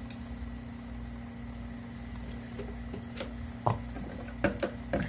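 Quiet chewing with a few faint clicks over a steady low hum.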